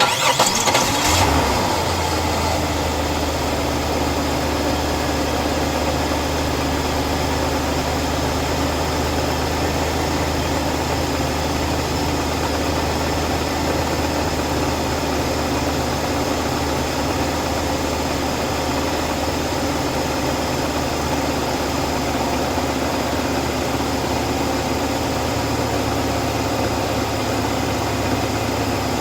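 Oldsmobile engine starting, running up briefly for about a second and a half, then settling into a steady idle. No vacuum-leak hiss is heard from the freshly patched hoses, which the owner takes to mean the leak is fixed.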